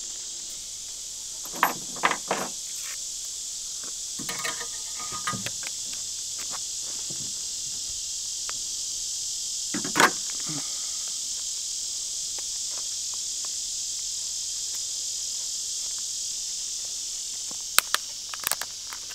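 Steady high-pitched chorus of insects, with scattered sharp metallic clicks and snips from fencing pliers working barbed wire. The loudest click comes about ten seconds in, and a few more come near the end.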